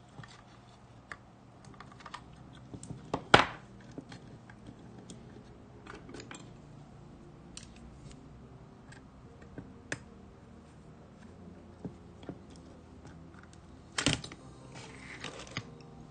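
Small clicks and taps of metal camera parts and small tools being handled during the teardown of a Canon Demi Rapid film camera. Two sharper knocks stand out, the loudest about three seconds in and another near the end.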